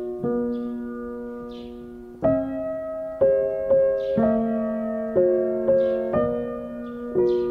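Background music: a slow piano melody of single struck notes and chords, each ringing and fading before the next, about one every half second to second.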